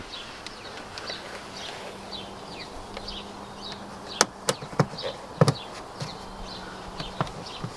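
Hand handling noises as fingers press the dash cam power wire into the gap between the dashboard and the door frame: a few sharp clicks a little past halfway, then a duller knock. Birds chirp faintly in the background, over a faint steady hum.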